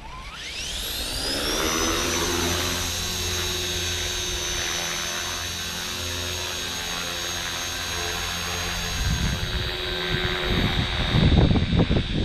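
Walkera V450D03 electric RC helicopter's motor and rotor head spooling up, a whine that rises over the first second and a half and then holds at a steady high pitch. From about nine seconds in, a rough low rumble of buffeting rotor wash or wind on the microphone joins it.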